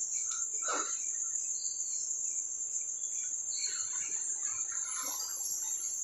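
Crickets trilling, a continuous high-pitched ring, with a few faint scuffs and rustles.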